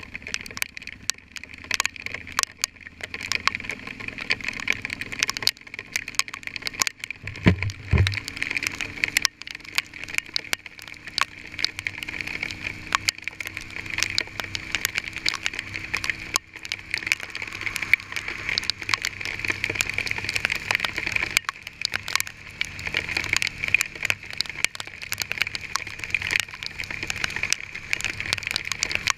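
Hail coming down hard: a dense, irregular patter of sharp clicks and knocks over a steady hiss, with a couple of heavier low thumps about eight seconds in.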